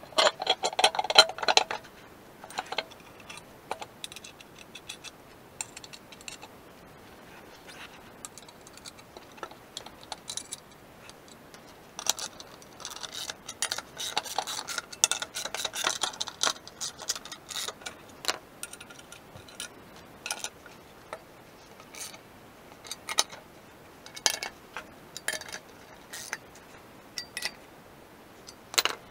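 Scattered small metallic clicks and clinks of wheel nuts being fitted by hand to a steel spare wheel's studs and hub plate, with a dense run of clicks near the start and another about halfway through.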